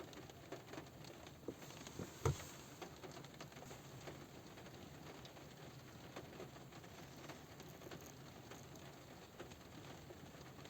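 Light rain on a car roof: scattered drops tapping irregularly on the metal, with one louder tap about two seconds in.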